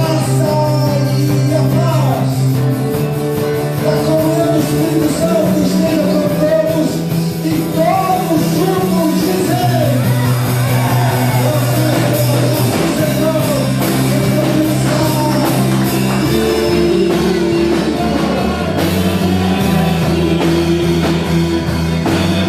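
Music with singing: sustained bass and chord notes that change every few seconds, with a wavering sung melody over them, in the style of a contemporary worship song.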